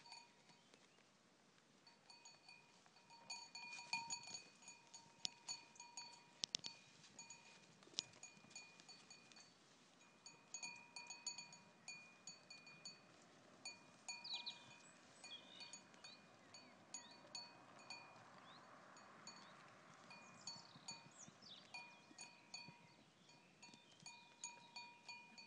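A small bell on a browsing Boer goat clinking irregularly, sometimes several strikes in quick succession, as the goat moves while feeding. A few faint bird chirps come in around the middle.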